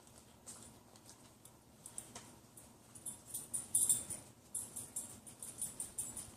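Puppy chewing and gnawing on something: a run of irregular small crisp clicks and rattles, sparse at first and getting busier and louder about three seconds in.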